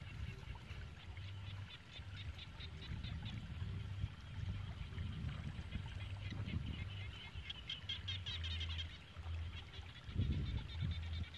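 Frogs calling: rapid trains of high-pitched pulses, busiest about two-thirds of the way through, over a low steady rumble.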